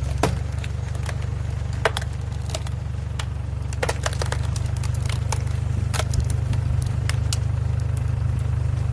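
Tractor engine running steadily at its lowest RPM and driving a screw (cone) log splitter, with repeated sharp cracks and snaps from the log as the screw bores in and splits it.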